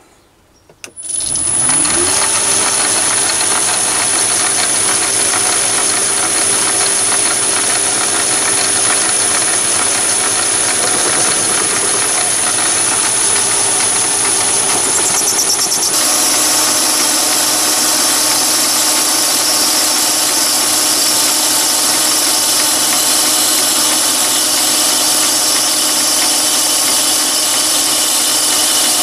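Chinese mini lathe starting up about a second in, its pitch rising, then running steadily with a high whine as it turns down a brass piston rod. About halfway through the sound changes abruptly, with the spindle at a lower speed.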